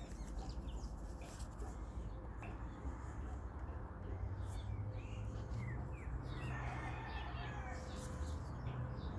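Small birds chirping in short, scattered calls, with a few faint clicks of small metal parts or a tool being handled over a steady low hum.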